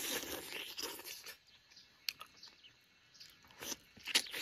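Close-up eating sounds of a spicy chicken wing being bitten, chewed and sucked: wet, smacking mouth noises in bursts, busiest in the first second and again near the end, with a sharp click about halfway through.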